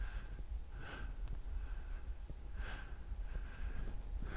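A man breathing while straining through a reverse planche lean hold: two breaths about two seconds apart, over a steady low hum.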